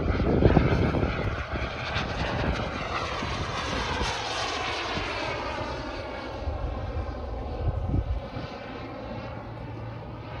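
Scale SAAB 35 Draken RC model jet flying past overhead: a steady rushing jet sound whose tone sweeps up and down as it passes, fading gradually as it flies away. A low rumble is loudest in the first second.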